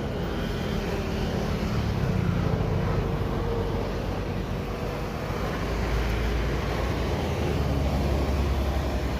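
A motor running steadily over a low rumble, its pitch drifting slowly up and down.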